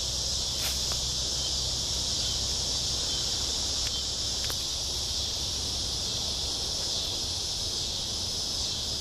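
Steady late-summer chorus of insects at dusk, an unbroken high-pitched drone with a few faint clicks.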